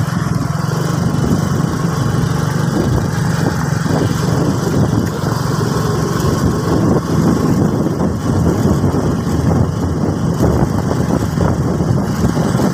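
Motorcycle engine running steadily while riding along a dirt road, with wind rushing over the microphone.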